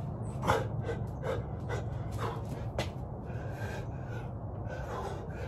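A man breathing hard in quick, noisy pants, about two a second and then slower and fainter, out of breath from a set of burpees.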